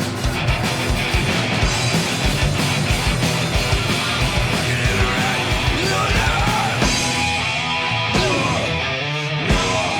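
Loud punk/heavy metal rock band playing: distorted electric guitars, bass and pounding drums. About seven seconds in the drums drop back, leaving guitar with bending notes.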